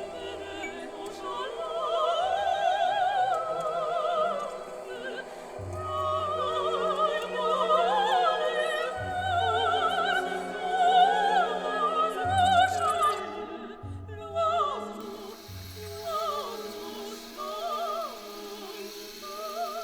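Operatic singing with strong vibrato over instrumental accompaniment with low bass notes.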